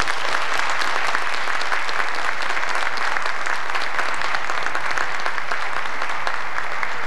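Audience applauding steadily in a large hall: a dense, even patter of many hands clapping at the end of a speech.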